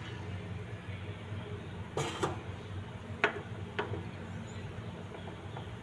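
Flat metal spoon stirring thickening milk for rabdi in a metal pan, with a sharp knock against the pan about two seconds in and two lighter clicks over the next two seconds. A low steady hum runs underneath.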